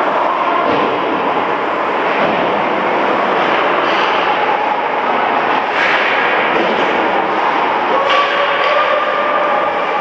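Ice hockey rink during play: a steady wash of crowd noise blended with skates and sticks on the ice, with a sharp knock about six seconds in and a drawn-out shout near the end.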